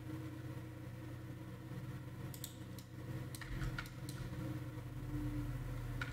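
Faint, steady low hum of background noise with a few scattered soft clicks from a computer keyboard and mouse, mostly in the middle and near the end.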